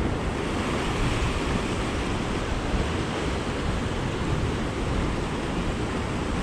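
Sea surf washing over coastal rocks, a steady rush of water, with wind rumbling on the microphone.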